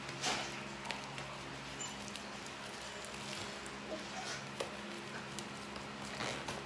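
Plastic wrap on a product box being picked and slit open with a small hand tool: faint scattered rustles and ticks, with a short crinkle just after the start and another shortly before the end, over a steady low hum.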